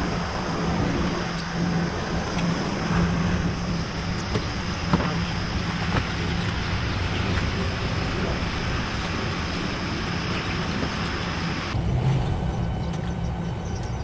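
Steady low hum over a constant rushing background noise, whose character changes abruptly near the end.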